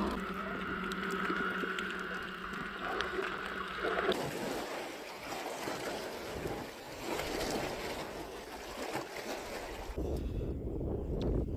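Sea water rushing around the camera with wind noise on the microphone, over a steady hum for the first four seconds. About four seconds in, the sound changes abruptly to a dense wash of noise.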